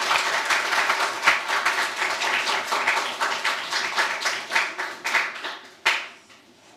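Audience applauding, a dense patter of many hands clapping that thins out and dies away about six seconds in.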